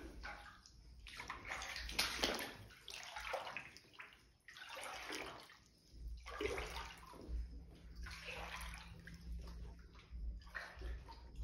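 Feet wading through standing floodwater, the water sloshing and splashing with each step, about one stride a second.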